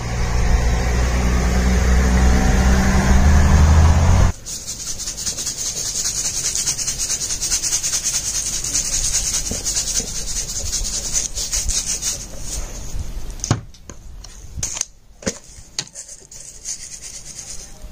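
A loud low rumble that stops abruptly about four seconds in. Then comes a grainy, rasping rattle of seasoning being shaken from a shaker canister over chunks of raw beef on a plastic cutting board, followed by a few light knocks near the end.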